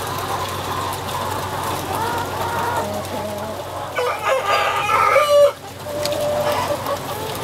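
Broiler breeder chickens clucking continuously. A louder rooster crow comes about four seconds in and cuts off abruptly about a second and a half later.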